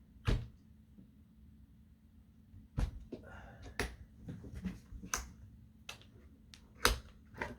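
Sharp clicks and knocks of airsoft rifle parts being handled during disassembly: five louder clicks spread out, with quieter rustling and handling noise between them.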